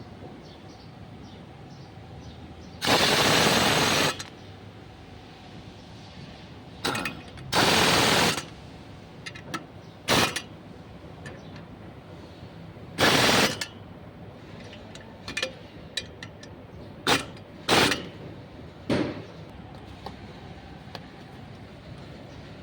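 Impact wrench rattling in short bursts: three longer runs of about a second each and several brief blips in between.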